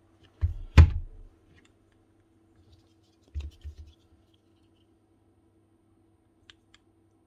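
Demolition hammer parts handled on a workbench: a sharp knock with a thump as a part is set down, a few softer knocks about three and a half seconds in, and two faint clicks near the end, over a faint steady hum.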